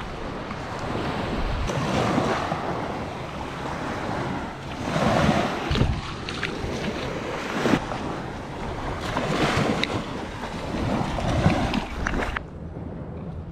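Small waves washing up and back on a sandy shore, swelling several times, with wind buffeting the microphone. The sound drops off suddenly about a second before the end.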